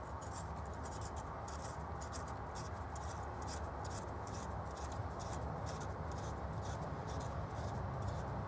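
A metal rod's 5/16-24 male thread being screwed by hand into a tapped part: light, repeated scratchy ticks of metal threads rubbing, over a steady low hum.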